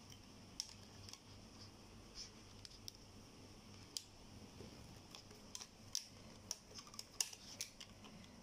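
Faint clicks and taps of a plastic water bottle, rubber bands and plastic drinking straws being handled, as straws are slid in under the bands. The clicks are scattered at first and come thicker in the last few seconds, over a faint steady hum.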